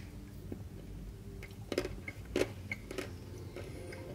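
Biting into and chewing a chocolate-coated ice cream bar on a stick, with a few short crisp cracks of the coating a little under two seconds in and again about half a second later.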